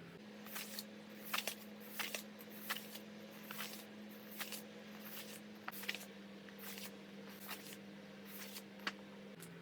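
Paper and plastic craft materials being handled and unpacked: a series of short crinkly rustles, about one or two a second, over a steady low hum.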